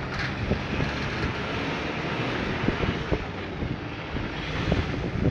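Wind buffeting the phone's microphone: a steady low rumble with a few brief knocks from handling.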